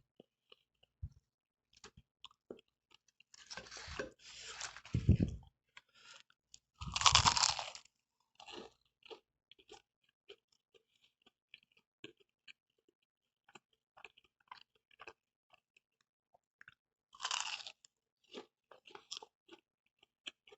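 Crunching and chewing on crisp deep-fried pastry wrapper: a few louder crunchy bites among quieter chewing clicks.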